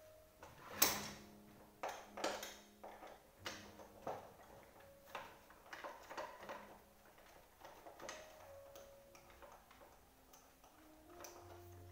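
Irregular metal knocks, taps and clicks from work on an office chair's gas-lift column and base, the loudest about a second in, with soft background music underneath.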